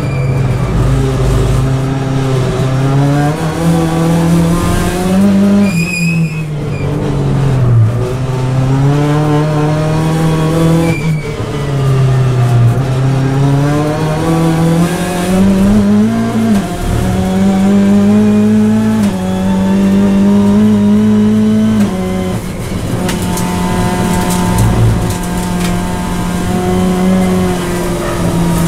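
Hyundai i30 N TCR race car's turbocharged four-cylinder engine, heard from inside the cockpit, revving up and down through a slow second-gear corner and then pulling hard through several quick upshifts. The tyres squeal briefly about six seconds in.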